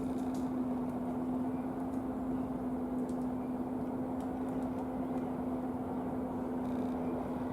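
A steady, even, low mechanical hum from a running motor, with a few faint short clicks over it.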